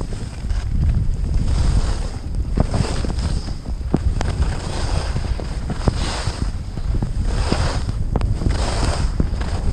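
Wind buffeting the camera's microphone during a fast descent on snow, a low rumble with surging washes of hiss from sliding over the snow and scattered sharp knocks over bumps.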